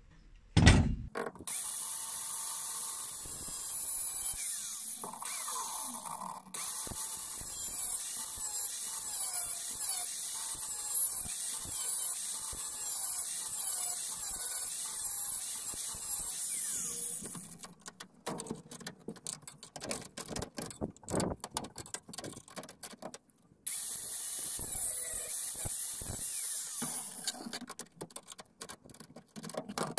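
Handheld power tool worked on a seized rear-beam mounting bolt: a steady, high-pitched run of about fifteen seconds, then clicks and clatter, then a second run of a few seconds near the end.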